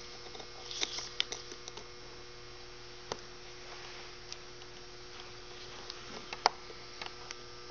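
Steady electrical mains hum with a few sharp light clicks of small metal parts being handled as a hoof-boot buckle and its screws are fitted back on. The loudest click comes about two-thirds of the way through.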